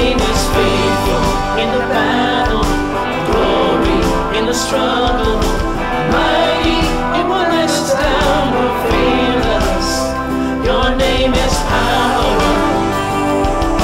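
Contemporary worship band playing a song: men and women singing together over acoustic guitar, keyboard and a drum kit with regular cymbal strokes.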